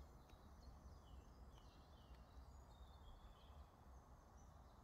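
Near silence: faint woodland ambience, with a few faint, short bird chirps in the first few seconds.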